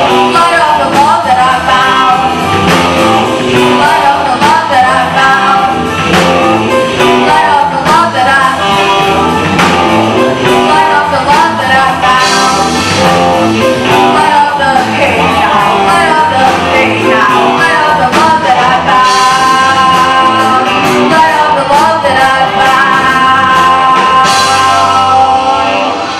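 Live rock band of young players: electric guitars, bass guitar and drum kit, with a young singer's voice.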